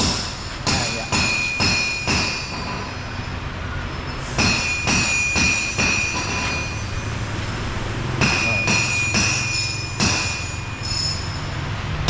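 Repeated hammer blows on steel, each strike ringing, about two a second, in three runs with short pauses between.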